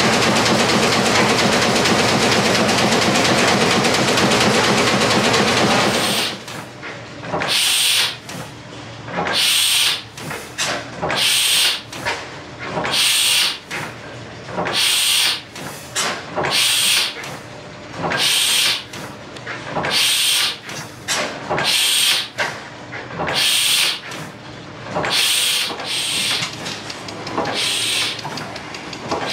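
A Fairbanks-Morse stationary engine running with a steady loud roar for the first few seconds. Then a large horizontal single-cylinder stationary gas engine with heavy twin flywheels runs slowly, giving a loud hissing puff about every two seconds with a quieter running sound between.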